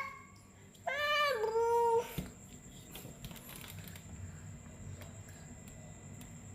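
A cat meows once, a drawn-out call of about a second that drops in pitch and then holds.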